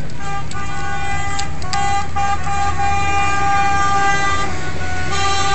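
Vehicle horn sounding in long blasts with short breaks, several tones at once, over a steady low engine rumble.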